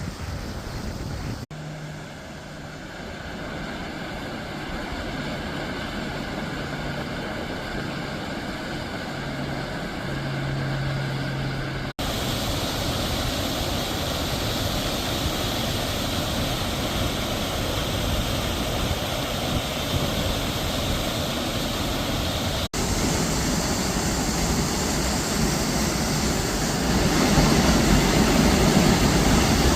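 Waterfall's steady rush of falling water, broken by three brief dropouts and louder near the end.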